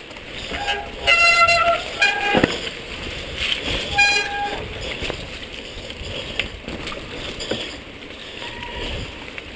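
Mountain bike rattling and rolling down a wet, rocky trail, with short high-pitched squeals of the brakes about a second in, near two seconds and about four seconds in.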